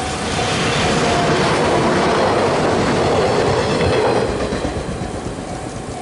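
A JNR-type train passing close by over the rails. Its wheel and rail noise builds over the first second, stays loud until about four seconds in, then fades. A level-crossing warning bell rings steadily underneath at about two strikes a second, plainest near the start and the end.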